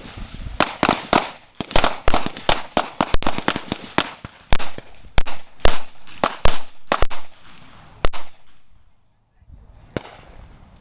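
Several handguns firing at once in rapid, irregular, overlapping shots. The shooting stops about eight seconds in, and one last shot comes about two seconds later.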